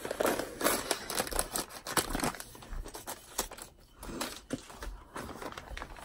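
Plastic poly mailer bag crinkling and rustling as it is torn open, in irregular crackles.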